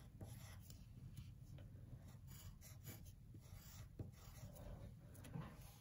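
Pencil lead scratching on paper in faint short strokes, drawing small shapes.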